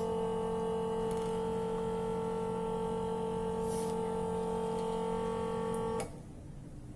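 Small electric motor of a phone-screen glue-removal machine running with a steady hum, spinning its steel wheel against the screen's glue, then cutting off suddenly about six seconds in.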